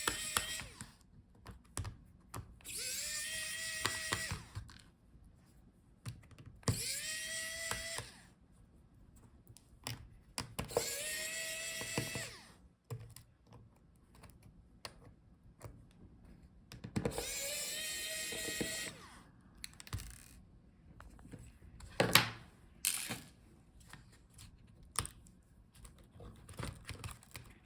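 Small electric screwdriver whirring in short runs of one to two seconds, each rising in pitch as the motor spins up, about five times. Light clicks come between the runs as the screws holding a laptop battery are taken out.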